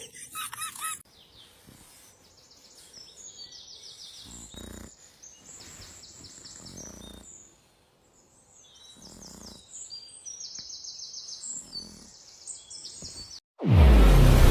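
Birds chirping in several short runs of quick repeated high notes over a faint background. A sudden loud noise starts about a second before the end.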